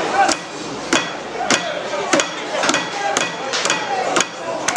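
Sharp knocks repeating at an even pace of about two a second, with a few voices calling in the background.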